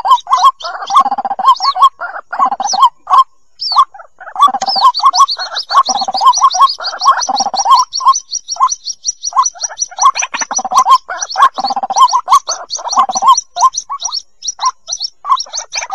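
White-breasted waterhen chicks calling for their parents: repeated lower calls throughout, joined from about four seconds in by a fast run of high peeps.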